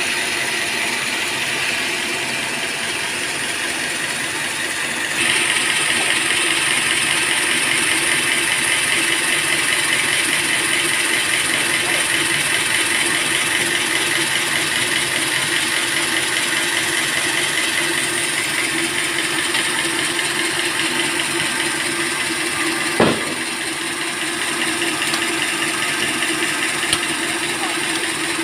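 Band sawmill running steadily, its motor humming under the hiss of the blade; about five seconds in the sound grows louder and brighter. A single sharp knock sounds near the end.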